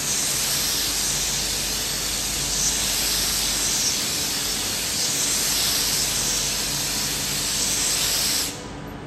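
A loud, steady hiss from the front end of a Class 390 Pendolino electric train standing at the platform, cutting off suddenly near the end.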